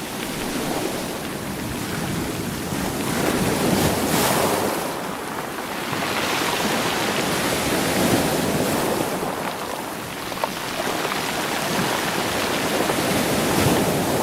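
Sea waves washing over rocks and rolling the stones, a continuous rushing hiss that swells and ebbs in slow surges, loudest about four seconds in and again near the end.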